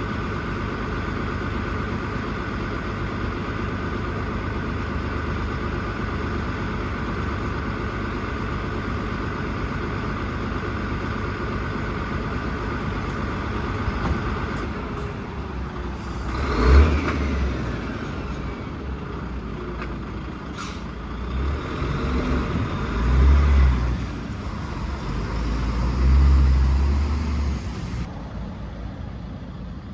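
JCB 4CX backhoe loader's diesel engine running steadily, then working harder in several surges from about halfway through, with a sharp knock among them, as it loads rubble.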